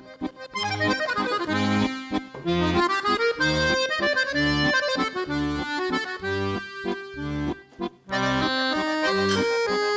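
Accordion music: a melody over a steady alternating bass-note-and-chord accompaniment, with a brief break about eight seconds in.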